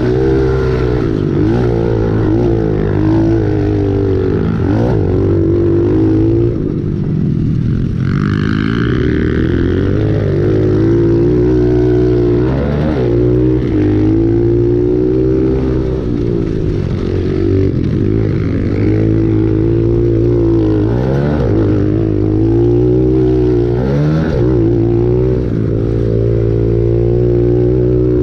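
Pit bike engine racing on a dirt motocross track, heard from on the bike: the revs climb and fall again and again as the throttle is worked through straights, jumps and corners, with a brief drop off the throttle about eight seconds in.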